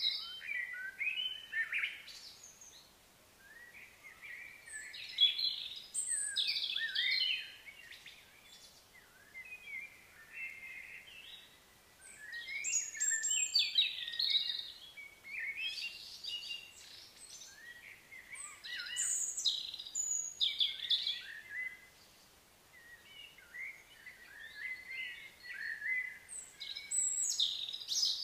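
Birds chirping and calling in bouts of a few seconds, with quieter gaps between them.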